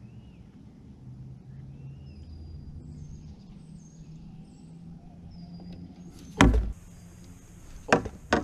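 Birds chirping faintly over a low outdoor rumble. About six seconds in comes a single loud thump, and two more knocks follow near the end.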